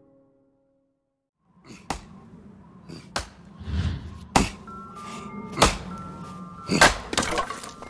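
Cartoon sound effect of an axe chopping wood on a stump: five sharp thunks about a second apart, starting about a second and a half in, over light background music.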